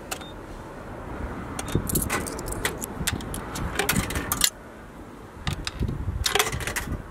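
Metal push-buttons on a parking pay station's keypad clicking as a stall number is keyed in, then coins fed into the coin slot clinking down inside the machine near the end.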